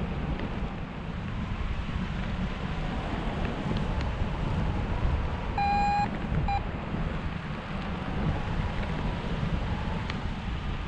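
Wind rushing and buffeting over the microphone during a paraglider flight, a steady low rumble. About halfway through come two short electronic beeps, the first longer than the second.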